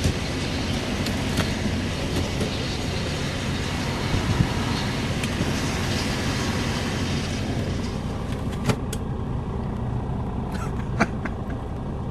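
Blizzard wind blowing hard and rushing over the microphone, easing in the upper range about two thirds of the way in, with a few sharp clicks near the end.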